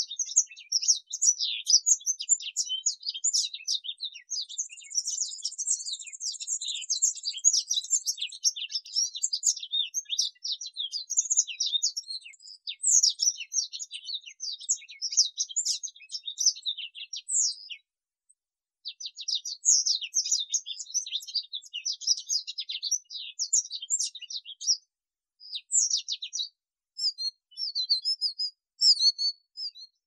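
Yellow-crowned canary singing: a long, fast, high-pitched twittering song with a buzzy high trill early on, a short pause about eighteen seconds in, and shorter broken phrases near the end.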